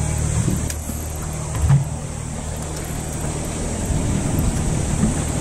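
Fishing boat's engine idling, a steady low hum, with a brief low thump about a second and a half in.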